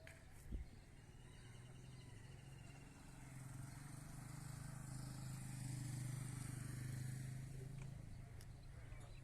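A vehicle engine running with a steady low drone that grows louder to a peak a little past the middle and then eases off, like a heavy vehicle passing. A single short knock comes about half a second in.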